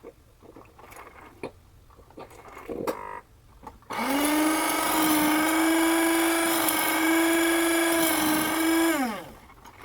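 Panasonic NC-A58 coffee maker's motor running with a loud, steady buzz for about five seconds, then winding down with falling pitch; the owner reports an abnormal vibration-like buzz (ブーン) developing within a month of purchase, cause unknown to Panasonic. Played at double speed, which raises the pitch.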